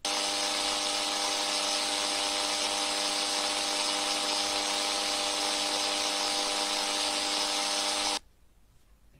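Loud, harsh, unchanging noise with a held multi-tone drone, the kind of distorted sound effect these meme edits use for their scariest stage. It starts suddenly and cuts off abruptly about eight seconds in.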